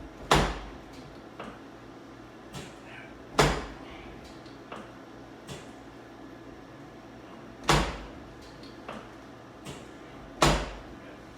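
Chiropractic table thudding four times, a few seconds apart, as the patient's spine is adjusted, with fainter clicks and knocks between the thuds.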